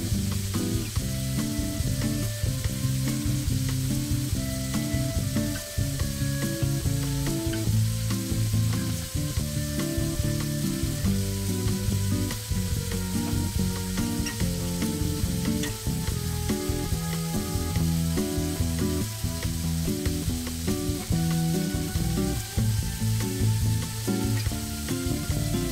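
Thick sirloin steak sizzling steadily as it sears in hot oil with garlic cloves in a Mauviel copper frying pan. Low tones that step from pitch to pitch every half second or so run underneath the sizzle.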